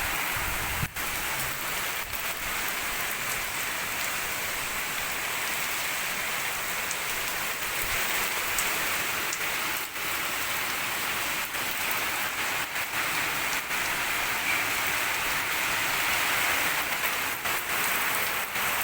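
Heavy rain pouring steadily, like a monsoon downpour, with scattered sharper drop hits.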